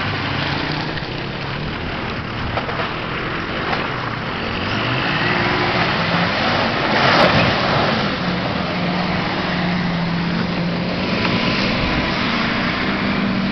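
Ford Super Duty 4x4 pickup's engine working under load as it crawls through mud and up a dirt mound, its pitch rising and falling with the throttle. A brief loud rush of noise comes about seven seconds in as the wheels churn the dirt.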